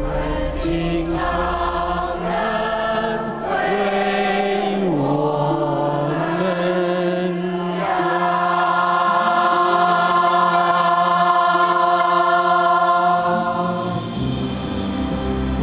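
Large choir singing a slow Buddhist hymn in long held phrases, the words asking the Master to teach the Dharma. It closes on a long sustained chord that fades near the end.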